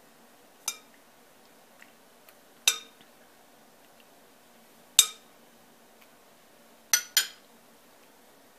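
Kitchen dishware clinking as it is handled: five sharp, ringing clinks spaced about two seconds apart, the last two close together near the end.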